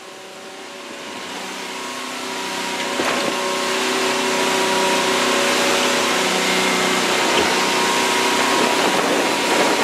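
Motorboat engine running steadily under a rushing haze of wind and water noise, growing louder over the first few seconds and then holding steady.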